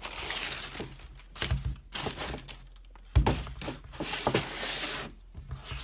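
Handling noise: rustling with a few dull knocks, the loudest about three seconds in.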